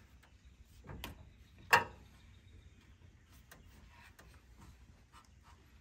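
Tools being handled at work on a truck: scattered light clicks and knocks, with one sharper knock a little under two seconds in.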